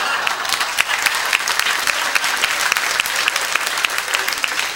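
Live audience applauding a stand-up comedian's punchline: many hands clapping together in a dense, even patter.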